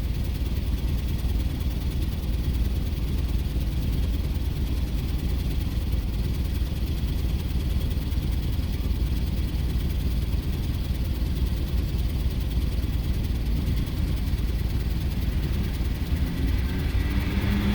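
2006 Jeep Commander's 4.7-litre V8 idling with a steady low rumble. The engine has logged a multiple-cylinder misfire code (P0300) and stalls unless given a little throttle.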